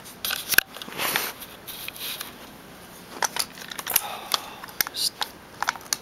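The top piece of an Echo1 Zombat Stryker airsoft gun being worked off its body: scattered sharp clicks and taps with a few short scrapes of plastic and metal parts rubbing and knocking together.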